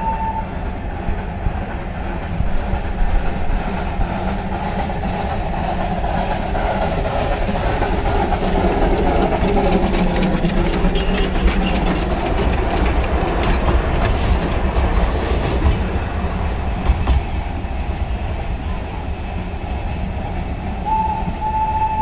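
Darjeeling Himalayan Railway narrow-gauge steam locomotive running past with its train. Its whistle sounds a steady high note at the start, stops about half a second in, and sounds again about a second before the end.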